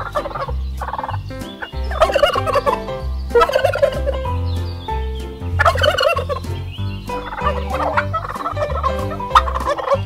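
Domestic turkeys gobbling in a series of rapid, warbling bursts, several birds calling over one another, over a steady pulse of low bass notes.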